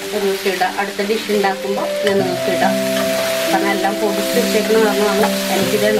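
A metal spoon stirs and scrapes through sliced onions and tomatoes sautéing in oil in a non-stick frying pan, with a steady sizzle. Background music plays held notes underneath.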